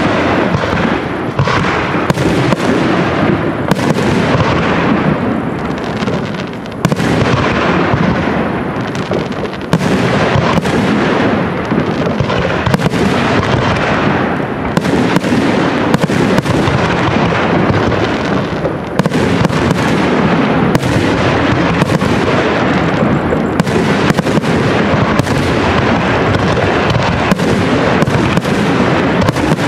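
Aerial fireworks display: a loud, unbroken barrage of shell bursts, many bangs overlapping in quick succession over a continuous rumble and hiss.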